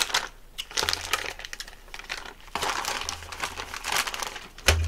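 Close-miked chewing of a cabbage-leaf wrap of jjolmyeon noodles: a string of crisp crunching and crackling. A sharp knock comes just before the end.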